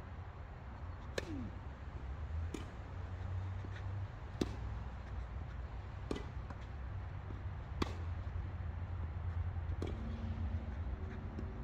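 Tennis rally: a tennis ball struck by rackets six times, a sharp pop roughly every second and a half to two seconds, over a steady low rumble.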